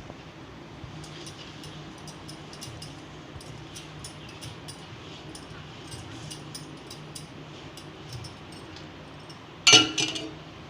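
Utensil clicking lightly and repeatedly against a pot while rice flour is stirred with hot water, then one loud metallic clank with a brief ring near the end.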